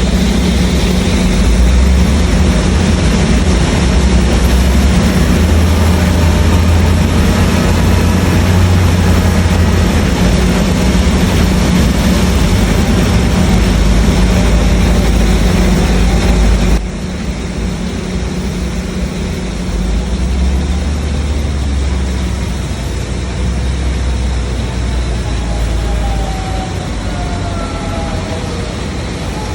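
Stationary industrial drum wood chipper running, a loud steady mechanical rumble with a deep hum. It drops abruptly about two-thirds of the way through and carries on a little quieter, with faint whining tones near the end.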